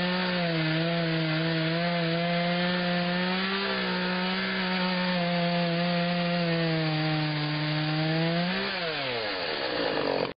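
Petrol chainsaw with an Oregon PowerSharp chain cutting through a log at high revs, its engine note dipping briefly twice. Near the end the revs drop away sharply, and the sound then cuts off suddenly.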